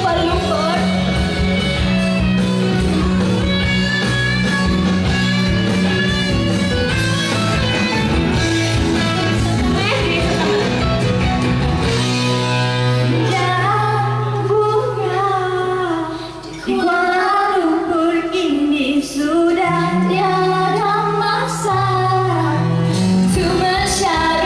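Loud pop song with a woman singing over guitar and a steady bass line.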